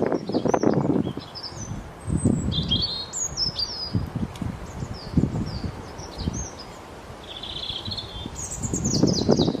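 Small birds chirping and tweeting in quick, short notes, several sliding down in pitch, over repeated bursts of low rustling noise.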